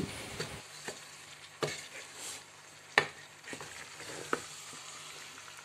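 Chicken, potatoes and peppers frying in a non-stick pot, with a soft steady sizzle, while a wooden spoon stirs them and knocks against the pot a few times. The sharpest knock comes about three seconds in.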